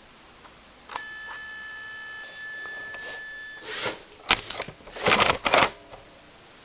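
Electronic target unit sounding one steady beep for about two and a half seconds, followed by a quick cluster of sharp clicks and short hissing bursts.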